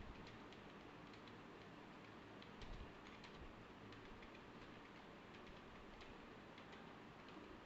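Faint computer keyboard typing: a quick, irregular patter of key clicks.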